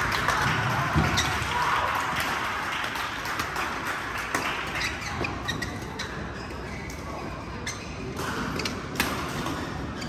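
Badminton rally: sharp racket-on-shuttlecock hits at irregular intervals, over background chatter in a large hall.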